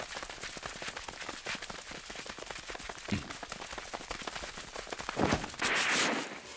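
Animated sound effects of ninja dashing through a forest: a dense, rapid patter like running footfalls and rustling leaves, with a dull thump about three seconds in and another about five seconds in, then a loud rushing whoosh near the end.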